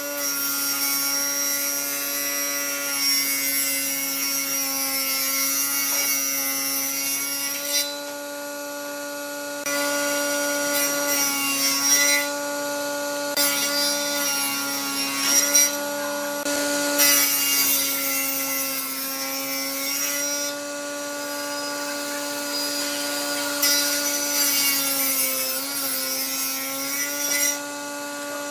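Table saw ripping boards and a thick wooden block. The blade and motor give a steady hum throughout, and a harsh cutting hiss comes and goes as each piece is fed through, with short gaps between cuts.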